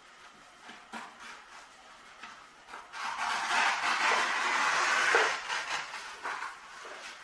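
Scissors cutting through gesso-primed canvas: a continuous stretch of cutting and rustling from about three seconds in to just past five seconds, with fainter snips and rustles around it.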